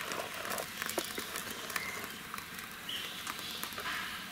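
Steel ladle stirring thick neyyappam batter of ground rice and jaggery, just mixed with ghee, in a stainless steel bowl, with a couple of light clicks of the ladle against the bowl about a second in.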